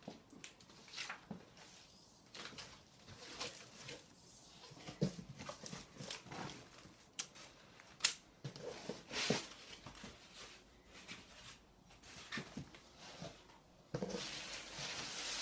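Cardboard box being unpacked by hand: irregular scrapes, taps and crinkles of cardboard flaps and packing, with one sharp snap about halfway through. Near the end a plastic packing bag rustles steadily as the crane scale is lifted out.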